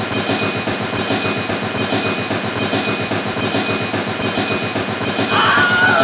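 Battery-powered toy steam locomotive running on plastic track: a fast, steady clatter of its motor and wheels. A brief higher warbling tone sounds near the end.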